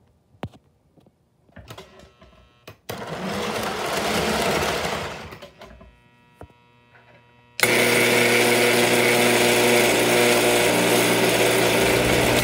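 Lionel 3656 stockyard corral's vibrator mechanism buzzing loudly as it shakes the plastic cattle figures along. It runs in two spells: one starting about three seconds in and dying away after a couple of seconds, and a steadier, louder one switched on suddenly about halfway through.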